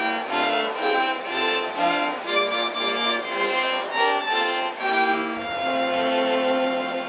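Bowed strings led by violins play a melody of short notes, then settle on a long held note about five seconds in.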